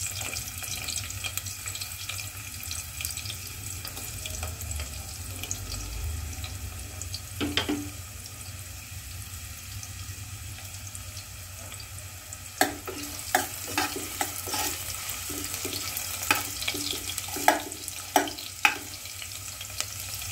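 Sliced onions frying in hot mustard oil in a pan: a steady sizzle with fine crackling. A series of sharp clicks comes in over the second half.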